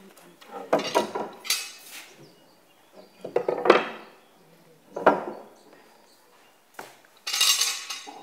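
Metal bar clamps clanking and rattling as they are handled and fitted across a glued-up panel of boards. There are four bursts, with metallic ringing about a second and a half in and again near the end.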